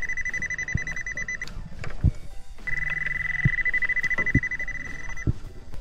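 Underwater metal detector sounding a steady high-pitched tone for about a second and a half, then again for about two and a half seconds after a short break: the signal of a metal target under the coil, here drink cans buried in the sand. A few dull knocks sound in between.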